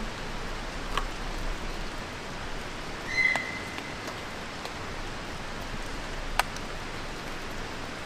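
Steady rain falling, with one short, high whistling call about three seconds in, the kind a deer gives, and a few sharp clicks, the loudest near the end.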